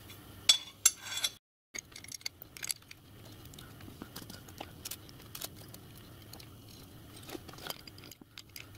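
Small steel parts and screws clicking and tapping against one another as they are picked up and fitted by hand, in scattered light knocks, the loudest few in the first second and a half.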